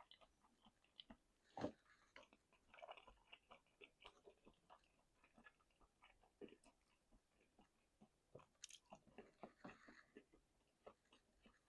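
Faint chewing and biting of chicken wings: irregular wet mouth clicks and small crunches as meat is pulled off the bone, with a sharper bite about a second and a half in.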